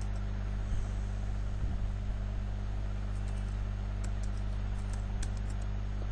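Steady low electrical hum with several even tones, with a few faint keyboard key clicks scattered through it as a terminal command is typed.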